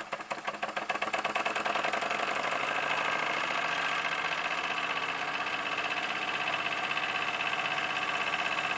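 Toy live-steam engine's horizontal single-cylinder engine running, a fast, even chuffing beat. It picks up speed and loudness over the first couple of seconds, then holds steady.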